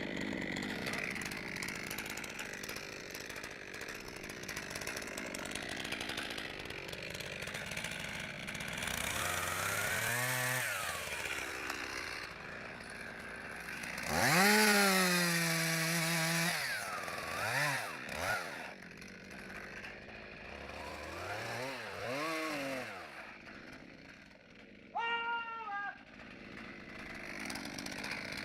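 Two-stroke chainsaw revved in several short bursts, each rising and falling in pitch. The longest and loudest burst is held at high speed for about two seconds around the middle.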